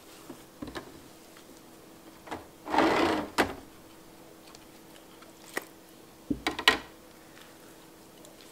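Plastic cheese molds and damp cheesecloth handled on a wire rack in a plastic tub: a loud scraping rustle about three seconds in as a mold is slid across the rack, then a few light plastic clicks and knocks against the rack, over a faint steady hum.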